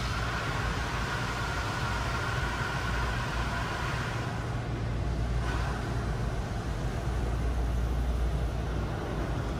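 Automatic tunnel car wash heard from inside the car: water spraying and running over the body and windshield over a steady machinery rumble. The hiss of the spray thins about four seconds in.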